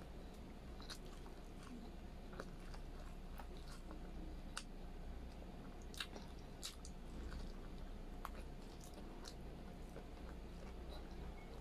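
A person chewing braised pork and rice with the mouth close to the microphone, with scattered short wet clicks and smacks.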